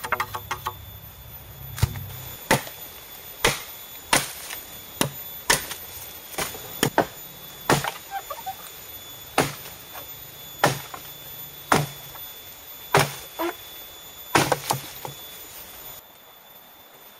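Machete chopping bamboo: a long series of sharp, separate strikes, about one every half second to a second, that stop near the end.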